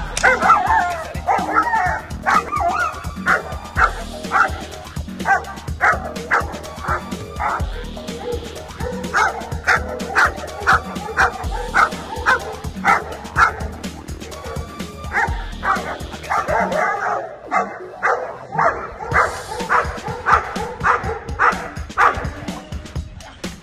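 German Shepherd puppy barking repeatedly at a training decoy, about two barks a second, over background music with a steady beat.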